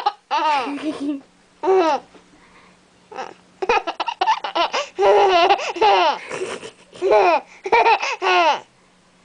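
A baby laughing in repeated short bursts of high-pitched giggles and squeals, with a brief pause a couple of seconds in.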